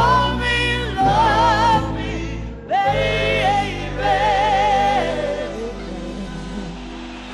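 Live band music: a woman's voice singing long held notes with wide vibrato over the band's sustained accompaniment. There is a short break about two and a half seconds in, and the music eases off near the end as the song winds down.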